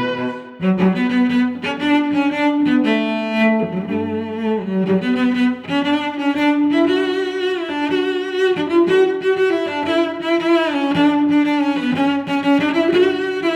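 Background music: a slow, mournful melody on bowed strings, held notes changing about once a second.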